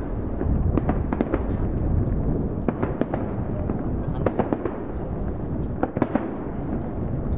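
A fireworks display: a rapid, dense string of sharp cracks and bangs, several a second, over a continuous low rumble of booms.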